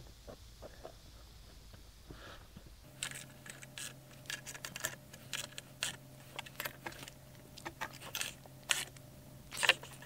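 Small socket ratchet tightening the bolts of a metal heat shield clamped around an engine muffler: irregular metallic ratchet clicks and light clatter of the shield, starting about three seconds in, the loudest click near the end.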